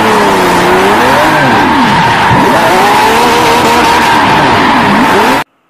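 Game-rendered Lamborghini Veneno drifting: its engine revs up and down repeatedly over a steady tyre squeal, with a rushing noise of skidding tyres. The sound cuts off abruptly near the end.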